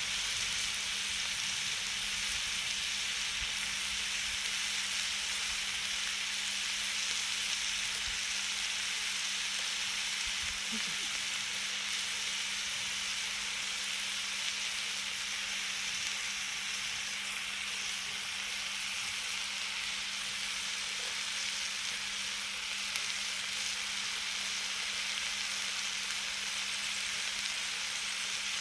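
Food sizzling steadily on a hot grill, an even hiss with no break, over a faint steady low hum.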